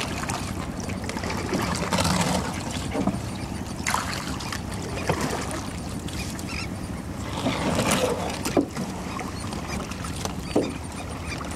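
Mussel-encrusted cultivation ropes being hauled out of the water into a boat: water splashing and streaming off them, with scattered wet knocks and scrapes as the heavy clumps drag over the gunwale.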